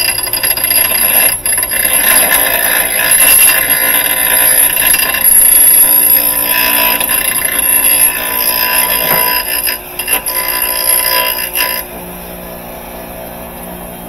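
Bench grinder grinding down the end of a brass tube, to bring its tapered bore more centered: a loud grinding with a high ringing edge that stops suddenly about twelve seconds in, leaving a low hum.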